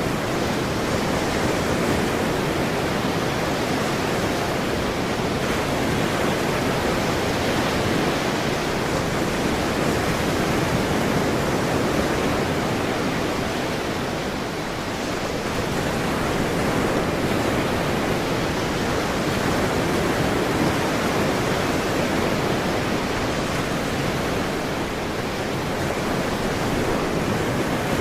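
Ocean surf: a steady wash of breaking waves, loud and continuous, easing slightly a couple of times.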